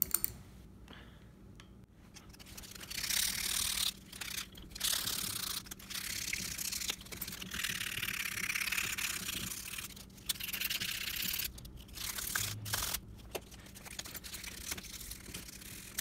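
Hands rubbing surface rust off a bicycle's metal V-brake noodle and cable: scratchy scrubbing strokes in several stretches of a second or two, with short pauses and a few small clicks.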